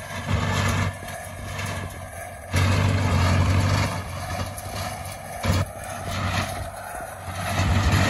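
McCormick-Deering W4 tractor's four-cylinder engine running as it pulls a New Holland small square baler through the windrow, the baler working behind it. The low hum swells and drops every second or two.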